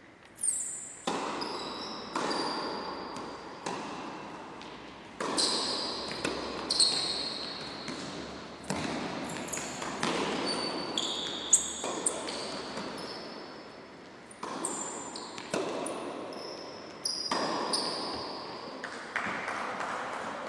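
Tennis rally in a large echoing sports hall: the ball struck by rackets and bouncing on the court, a sharp knock about every second or so, each ringing out in the hall. Short high squeaks of tennis shoes on the sports floor come between the shots.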